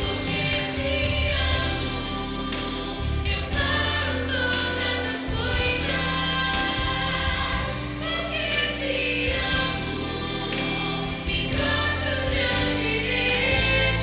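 Choir singing with instrumental accompaniment, held notes over a steady bass line.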